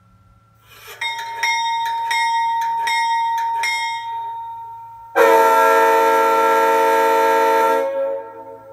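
Sound decoder in an LGB G-scale Amtrak Genesis model locomotive, heard through its speaker. A locomotive bell rings about five times and dies away, then a single diesel horn blast sounds for about two and a half seconds and cuts off.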